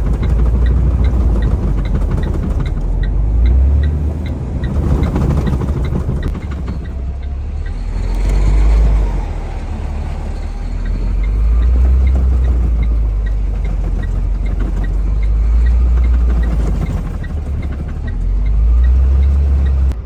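Heavy truck's diesel engine labouring under load on an icy uphill, its drone swelling and easing every few seconds as it inches up the grade. A quick, regular light ticking runs through roughly the first half.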